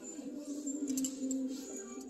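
Background music with long held notes, and a couple of light clicks about a second in.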